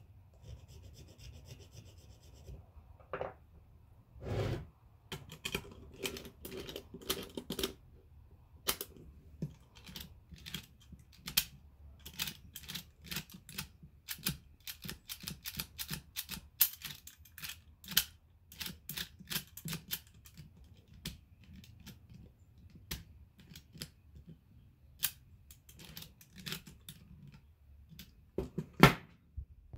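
Metal clicking and rattling of a rusty mortise lock's mechanism as a key is turned back and forth in it: many irregular sharp clicks, with a louder clack near the end. A few knocks and scrapes come in the first seconds.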